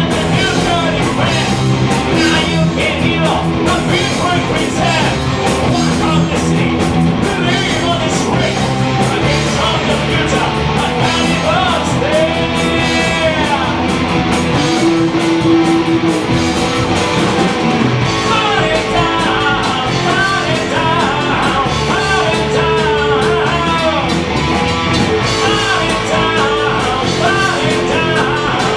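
A heavy metal band playing live: distorted electric guitars, bass and drums. A high lead line wavers and bends around the middle and through the second half.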